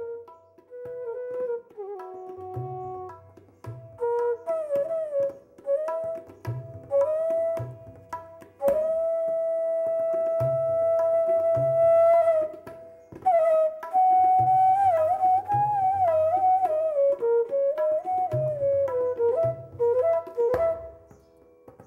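Instrumental background music: a single melodic line with bending, gliding notes and one long held note in the middle, over repeated low drum strokes.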